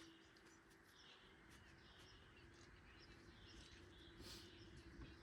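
Near silence: faint outdoor quiet with distant birds chirping now and then.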